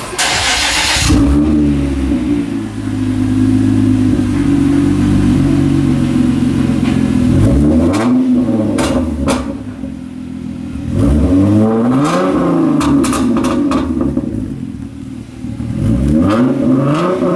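2011 Hyundai Genesis Coupe 3.8L V6 firing up through a catless aftermarket exhaust: new mandrel-bent downpipes in place of the catalytic converters, a resonator and a Flowmaster 80 series muffler. It then idles and is blipped three times, each rev rising and falling back to idle.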